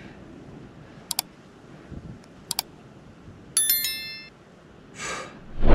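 Two pairs of sharp clicks, then a short high-pitched metallic ding with several ringing tones. Near the end there is a brief hiss and a loud thump.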